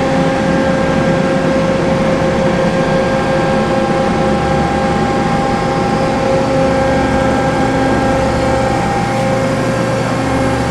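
Okuma Crown L1420 CNC turning center running with its hydraulic pump on: a steady machine hum with several constant whining tones.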